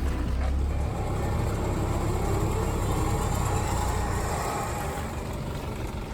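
Off-road vehicle driving, its engine running steadily along with road noise.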